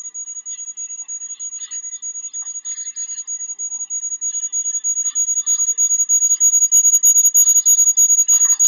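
A loud, steady, high-pitched electronic tone, like an alarm, with faint speech underneath that grows louder near the end.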